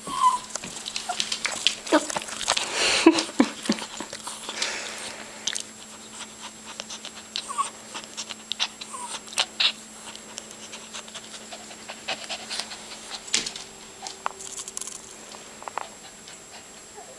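Small Papillon dog panting excitedly, with a few short whines, amid scattered sharp clicks and taps; the panting is strongest in the first few seconds.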